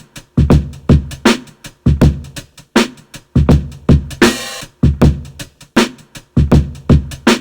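Boom bap drum pattern of kick, snare and hi-hats from the Akai MPC Sample's stock drum sounds, looping at a steady tempo. A longer hissing cymbal-like hit sounds about four seconds in.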